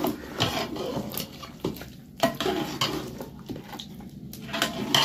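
Metal ladle stirring a thick meat curry in a large metal pot, with irregular knocks and scrapes of the ladle against the pot.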